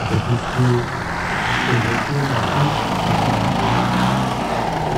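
Hornet HE125 125cc gasoline engine and 29-inch propeller of a large RC Carbon Cub model airplane running in flight. The engine-and-propeller drone swells about a second and a half in, then holds steady.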